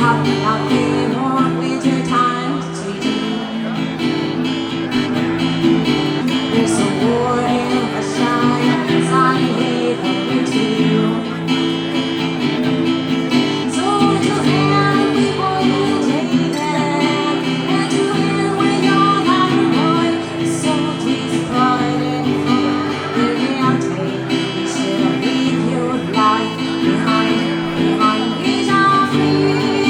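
Acoustic guitar music: steadily strummed chords with short melodic notes picked over them, with no break.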